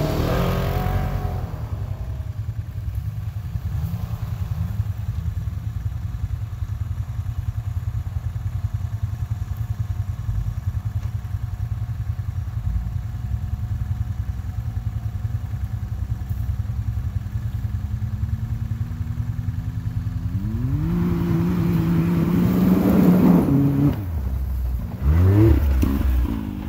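Side-by-side UTV engine running at low, steady revs, then revving up about twenty seconds in and holding high for a few seconds before dropping back. It revs up and down again near the end as a UTV drives past close by.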